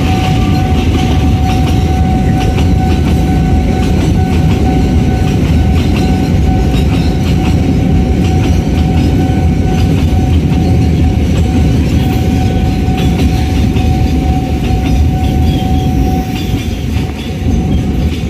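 Long freight train of container flat wagons rolling past at a level crossing: a loud, steady rumble with quick clacking of the wheels over the rail joints, and a steady high tone held above it. The rumble eases a little near the end.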